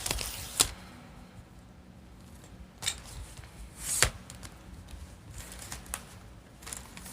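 Tripod parts being handled and adjusted: a few sharp, irregular clicks and knocks, the loudest about half a second in and about four seconds in.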